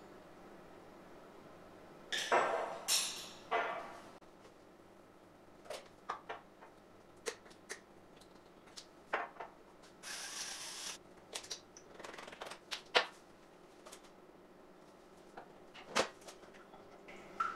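Small kitchen handling sounds: a metal spoon scraping and tapping in a glass jar and glass bowl, with scattered clicks and knocks of jars and lids. There is a louder cluster of knocks a couple of seconds in and a brief hiss about halfway through.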